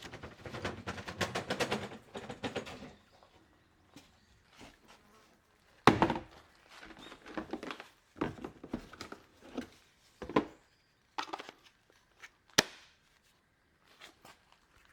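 Irregular knocks and thuds from objects being handled: a quick clatter of small knocks, then single sharp knocks every couple of seconds.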